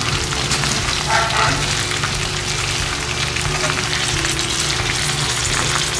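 Grasshoppers deep-frying in hot oil in a wok, a steady sizzle, with a metal ladle stirring through them now and then. They are nearly crisp.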